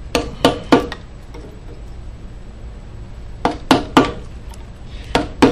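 Sharp taps of a carving chisel cutting into walnut: three quick taps, a pause, three more, then two near the end.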